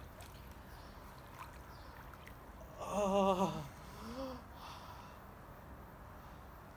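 A man's voice: one drawn-out vocal sound with a wavering pitch about three seconds in, then a short rising one, over faint steady background noise.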